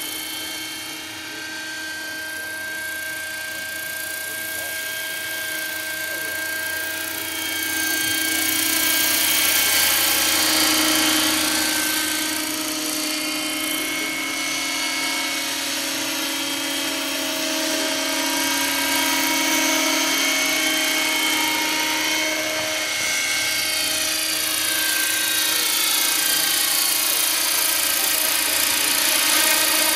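Electric scale model of an Aérospatiale SA 315B Lama helicopter in flight: a steady high whine from the electric motor and drive, with the whirr of the rotor blades. The whine's pitch bends up and down as the model flies back and forth, and it grows louder about eight seconds in as the model comes closer.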